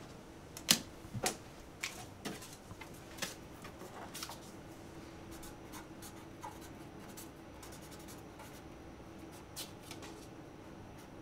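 Scattered small clicks and taps, the loudest about a second in and most of them in the first few seconds, over a faint steady hum.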